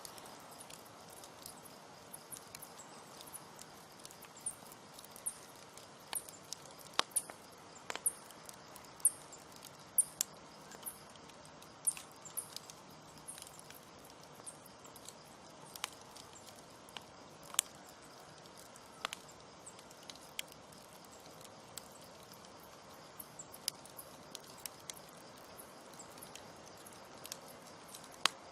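Campfire crackling: irregular sharp pops and snaps of burning wood over a steady hiss of the flames, busiest in the middle. A faint high chirping repeats about twice a second through the first half.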